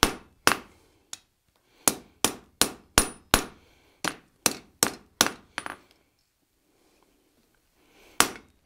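Hand hammer striking red-hot half-inch square steel bar on an anvil, about three blows a second, forging the head into shape. The blows stop for about two seconds, then two more strikes come near the end.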